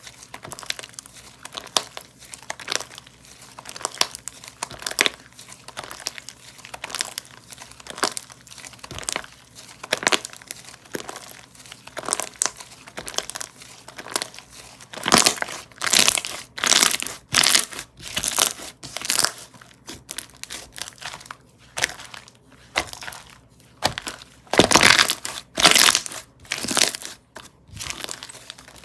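Slime being squished, poked and stretched by hand, giving a dense run of sharp crackling clicks and pops, louder in two stretches in the second half.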